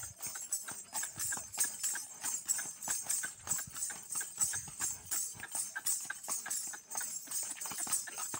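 Horse's hooves stepping and striking packed ground in a quick, uneven rhythm as it is schooled in the chautala dancing gait, with bells on its leg bands jingling at each step.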